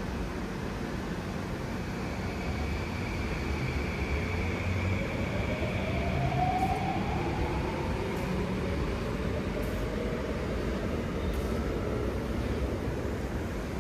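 Singapore MRT train heard from inside the carriage: steady running rumble, with the traction motors' whine slowly rising in pitch as the train picks up speed.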